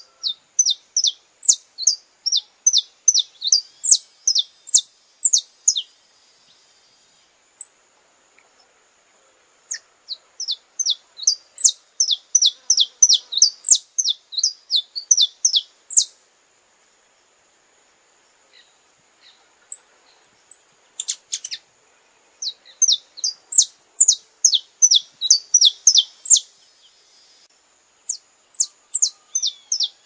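Saffron finch (canário-da-terra) singing: long runs of quick, high notes, each sweeping downward, about three or four a second. The runs last several seconds and come four times, with pauses of a few seconds between them.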